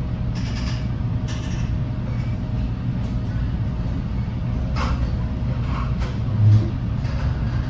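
Inside a NJ Transit Multilevel passenger coach on the move: the car's steady low running rumble, with scattered light clicks and rattles and one short low thump about six and a half seconds in.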